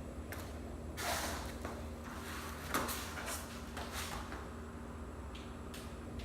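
Short bouts of scraping and rustling handling noise with a few sharp clicks, the loudest about a second in and just under three seconds in, over a low steady hum.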